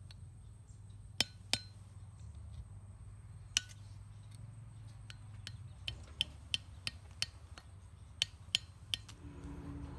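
A hammer tapping a screwdriver into the seal groove of a steel excavator boom-cylinder gland to work out the old seal: about a dozen sharp taps, a few singles early on, then a quicker run of strikes in the second half.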